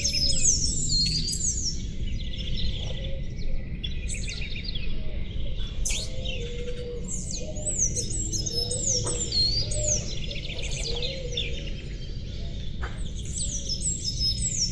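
Several small songbirds chirping and singing together in quick overlapping high notes and short down-slurred whistles, over a steady low rumble.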